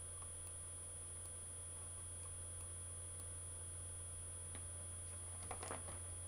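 Quiet room tone: a steady low electrical hum with a faint high whine, a few faint ticks, and a brief cluster of soft clicks about five and a half seconds in.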